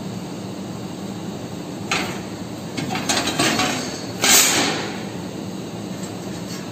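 Cut stainless steel sheet and cut-out parts knocking and clinking as they are handled over the laser cutter's metal support slats: a knock about two seconds in, a short run of clinks around three seconds and the loudest rattle just after four seconds, over a steady low machine hum.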